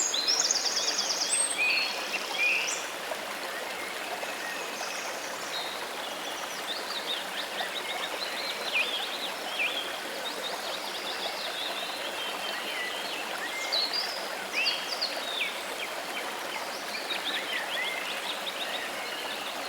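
Steady rush of flowing water with songbirds chirping over it. A rapid high trill sounds in the first two seconds, and scattered short chirps follow throughout.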